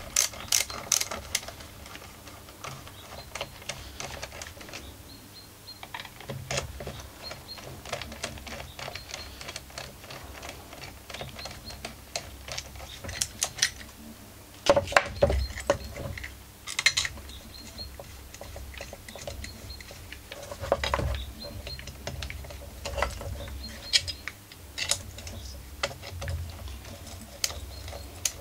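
Small clicks, taps and knocks of hands and a screwdriver working on the Stihl FS51 AVE's small two-stroke engine and its plastic fuel tank during reassembly, with a few louder knocks about halfway through and again later.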